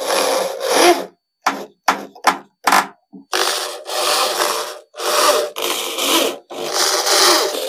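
Corded electric drill with a screwdriver bit driving screws through a 12-inch subwoofer's mounting flange into the speaker box, its motor whining in bursts. There are several short bursts in the first half, then longer runs of about a second each.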